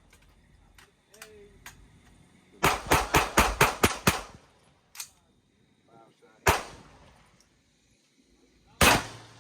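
Gunshots from an AR pistol with a muzzle brake: a fast string of about eight shots in a second and a half, then a fainter shot and two more single shots a couple of seconds apart.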